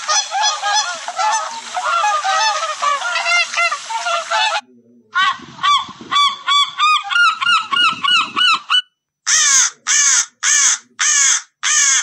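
Swan calls, many birds calling over one another, until about four and a half seconds in; then a seagull's calls repeated in a quick series. From about nine seconds a different bird's loud harsh calls repeat roughly every 0.6 s, with a short break near the end.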